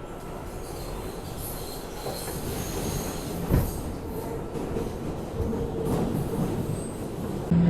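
Interior noise of an R211A New York subway car running through the tunnel: a steady rumble of wheels on rail that slowly grows louder, with one sharp knock about three and a half seconds in and faint wheel squeal.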